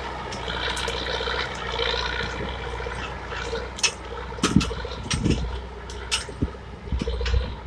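Heavy off-road truck running as it churns through deep mud, a steady low engine hum under a wet, sloshing rush from the wheels. From about four seconds in, a series of sharp snaps and knocks.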